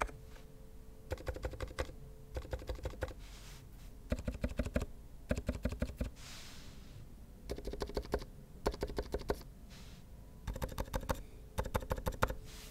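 Typing on a Mark65 mechanical keyboard with Krytox 205g0-lubed Silent Alpaca V2 switches and HyperX Pudding keycaps: quick runs of keystrokes in about eight short bursts with pauses between. A soft swish comes about six seconds in.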